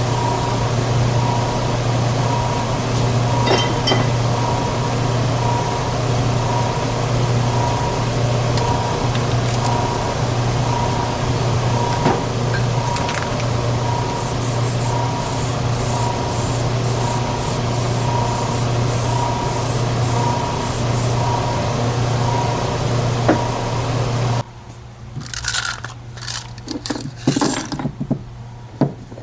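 A machine running steadily with a low drone and a faint tone that pulses about once a second. It cuts off suddenly about 24 seconds in, followed by a few light metallic clicks and knocks.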